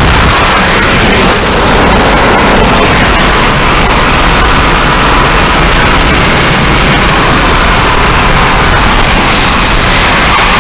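Loud, steady road and wind noise of a car driving at speed, heard from inside the cabin.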